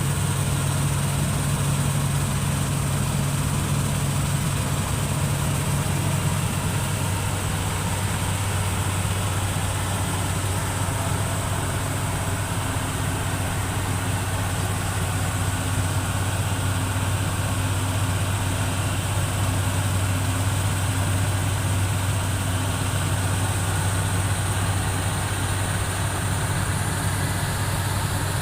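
Engine of the 8070 harvesting machine running steadily with a low drone; its tone shifts lower about seven seconds in.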